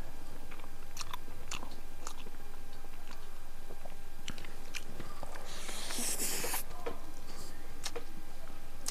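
A person chewing and biting food close to a clip-on microphone: soft boiled egg and biryani rice, with scattered wet mouth clicks and smacks. A brief, louder burst of noise about six seconds in.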